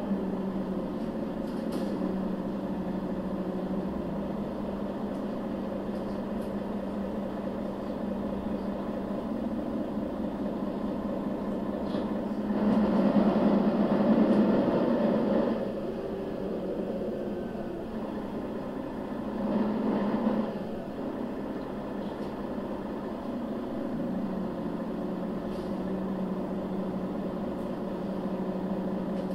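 A 2011 Mercedes-Benz O 530 GL CapaCity four-axle articulated bus running, its diesel engine giving a steady hum. It grows louder for about three seconds around the middle, then again briefly a few seconds later.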